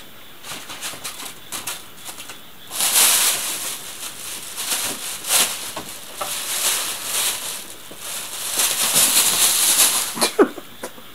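Thin plastic shopping bag rustling and crackling in bursts as a cat moves with the bag's handle caught around its body, loudest from about three seconds in and again shortly before the end. A brief squeak near the end.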